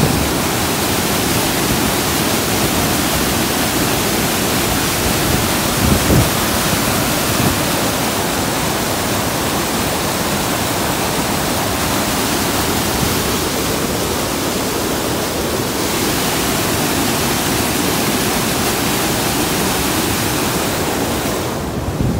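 Snowmelt mountain stream rushing and splashing over boulders: a loud, steady whitewater rush. Near the end the hiss of the water dulls.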